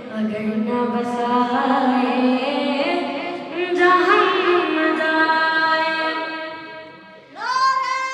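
A boy's voice singing a manqabat, an Urdu devotional song, through a microphone in long, gliding notes. A little past seven seconds, after a short drop in loudness, a voice sets in on one long, steady high note.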